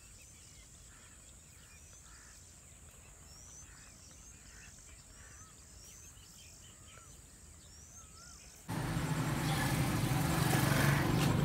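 Faint small birds calling in open farmland, a string of short rising chirps and whistles every second or so. About three quarters of the way through, the sound cuts abruptly to a much louder noisy rumble with a steady low hum.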